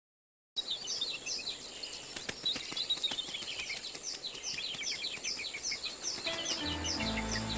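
Birds chirping: many short, falling chirps in quick succession, starting about half a second in after silence. Low sustained music notes fade in near the end.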